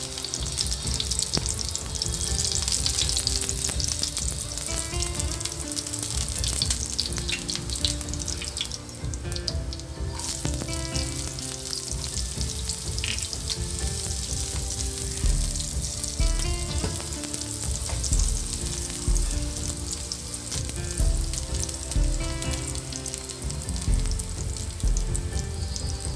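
Chopped garlic and onion sizzling and crackling in hot oil in a nonstick frying pan, stirred with a silicone spatula. Soft background music runs underneath, with a low steady beat from about halfway.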